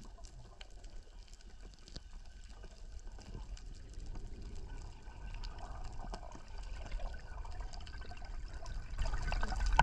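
Underwater ambience picked up by a camera in its housing: a steady low rumble with scattered crackling clicks and bubbling, louder about nine seconds in.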